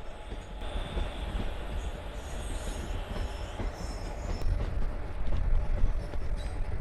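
Indian Railways passenger train rolling slowly into a junction station, its wheels rumbling and knocking over the rails, with a thin high wheel squeal in the first few seconds.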